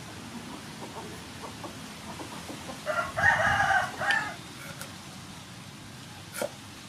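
A rooster crows once, about three seconds in, for roughly a second and a half. Under it, faint taps of a knife slicing on a wooden chopping block.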